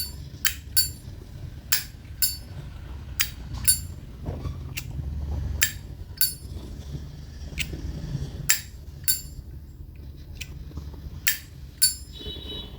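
Brass 1975 Zippo lighter's lid flicked open with a ringing clink and snapped shut about half a second later, about six times over, every two to three seconds.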